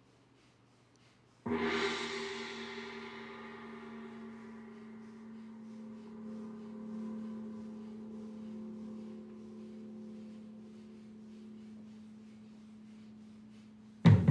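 A large gong struck once, about one and a half seconds in, its ring carrying on with a steady low hum and a bright shimmer that fades slowly. Loud drumbeats start near the end.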